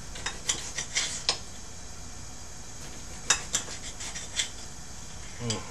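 Kitchen utensils clinking and knocking: a knife and dishes tapping on a cutting board or plate during tomato preparation, in irregular sharp clicks. There is a burst of several in the first second and a half and a few more around three to four and a half seconds in.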